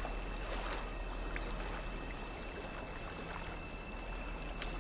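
Steady outdoor ambience: an even hiss with a thin, steady high tone and a low hum beneath it, and a few faint ticks.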